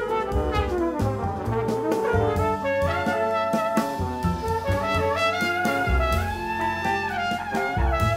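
Jazz chamber ensemble music with the brass to the fore: trumpets and trombone hold sustained notes over low bass notes and drum hits.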